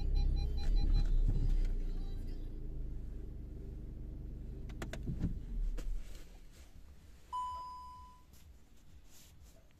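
Inside a car standing still: a low engine rumble with a few clicks, which dies away about six seconds in. A single short electronic beep follows about a second and a half later.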